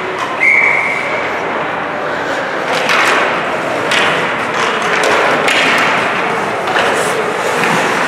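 Ice hockey play in a rink: sticks hitting the puck and sharp knocks of puck and players against the boards, several in a row, over steady skating noise and voices. A short, steady high tone sounds about half a second in.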